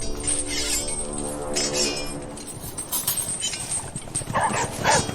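Battle sound-effect mix: a long held pitched tone for the first couple of seconds, then, from about four seconds in, a run of short yelping animal cries over faint metallic clinking.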